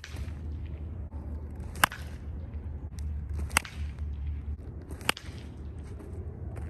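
A baseball bat cracking against pitched balls, four sharp hits in a row about one and a half seconds apart, over a low steady rumble.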